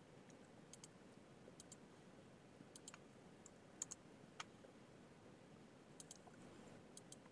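Faint computer mouse clicks, many in quick press-and-release pairs, a few times over several seconds, over low background hiss.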